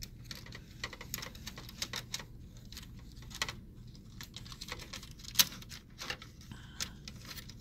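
Alcohol prep pad being rubbed over a keyboard's loose trackpad module to clean off conductive residue, with irregular light plastic clicks and ticks as the board and keys are handled. One sharper click comes about five and a half seconds in.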